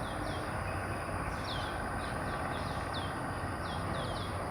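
Outdoor ambience: a bird gives repeated short, falling chirps, a few a second, over a steady high-pitched insect drone and a low, even background rumble.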